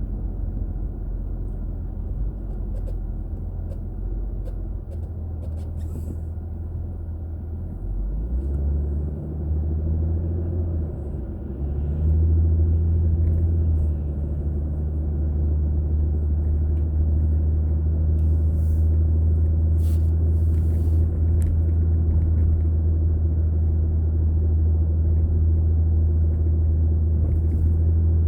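A car's engine and road noise heard from inside the car as a low, steady rumble. The drone steps up louder and higher about 8 seconds in and again about 12 seconds in, then holds steady.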